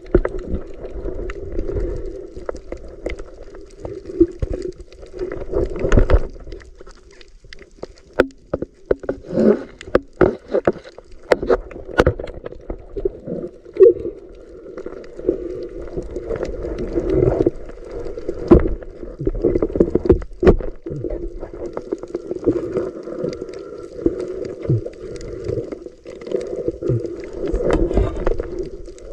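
Muffled underwater water noise picked up through an action camera's waterproof housing during a night snorkel, with sharp clicks and knocks scattered throughout, a few of them loud.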